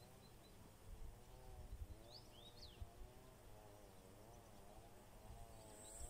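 Quiet outdoor ambience near silence: a few faint bird chirps, clearest about two seconds in, over a faint wavering hum, with a few soft low thumps.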